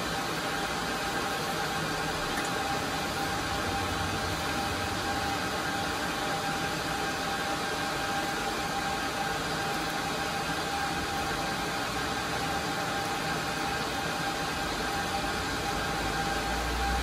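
Steady whir and hiss of cooling fans from a rack of network switches and HP ProLiant DL380p Gen8 servers, with a steady whine running through it. A low rumble builds near the end.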